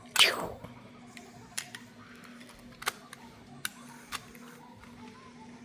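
A quick falling whoosh, the loudest sound, in the first half-second, then about five sharp, scattered plastic clicks from a handled toy, over a faint steady hum.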